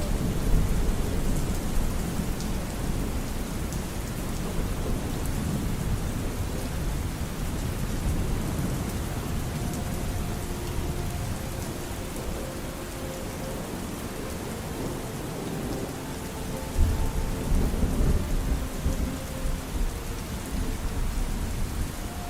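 Steady rain falling, with low rumbling thunder underneath; a louder roll of thunder comes about seventeen seconds in. Faint, distant held musical notes drift in the middle.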